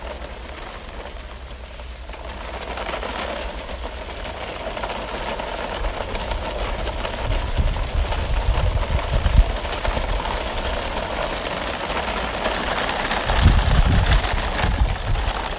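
Plastic toy trucks rolling in a line along a dirt path, their wheels crunching on grit and dry leaves as a steady rough rustle. Heavy wind rumble on the microphone comes and goes, strongest in the middle and near the end.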